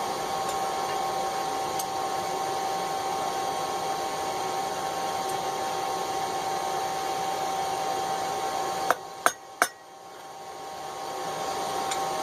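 A steady whirring hum, like a forge blower or shop fan, then three quick, sharp hammer strikes on metal about nine seconds in.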